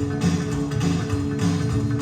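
Rockabilly music: guitar playing over a walking upright-bass line and a steady drum beat, with no vocals yet.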